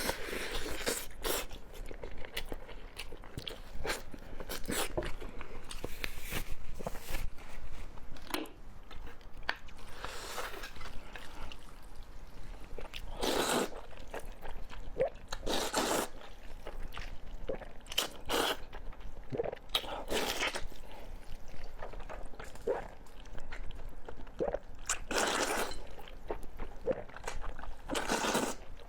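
A person eating close to the microphone: irregular crunchy bites and chewing, with a louder bite every few seconds.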